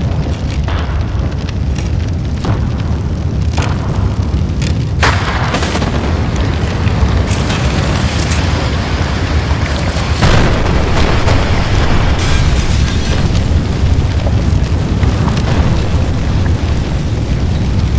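Building-fire sound effect: a loud, steady low rumble of burning with repeated sharp cracks and booms of explosions. The strongest bangs come about five seconds in and around ten seconds in.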